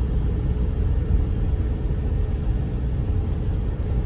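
Camper van on the move, heard from inside the cab: a steady low rumble of engine and road noise.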